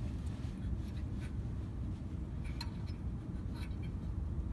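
Low steady rumble with faint rubbing and a few light scattered clicks: handling noise on a hand-held phone microphone.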